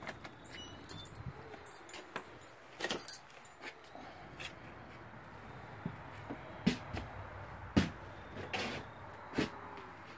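Scattered sharp clicks and knocks, about eight of them, the loudest about three seconds in and just before eight seconds, from someone coming in through a door and moving about the room.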